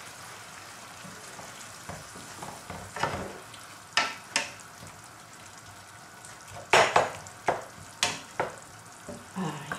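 Wooden spoon stirring and scraping a bolognese sauce of ground pork and crushed tomato in a nonstick frying pan, over a steady low sizzle. The spoon strokes come as sharp scrapes in two runs, about three seconds in and again around seven seconds, the loudest near seven seconds.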